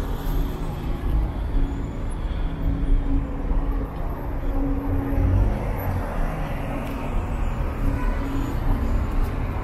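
Busy street noise with a steady low rumble and a few held low tones, typical of road traffic.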